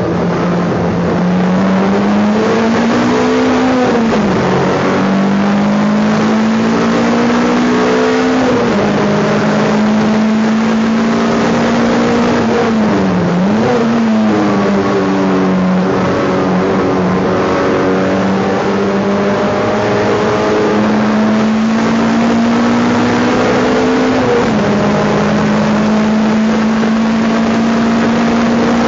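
Race car engine heard from inside the stripped, roll-caged cabin, running hard through a lap. Its note holds high with slow rises, sagging and recovering in pitch about four, eight and a half, thirteen and a half and twenty-four and a half seconds in.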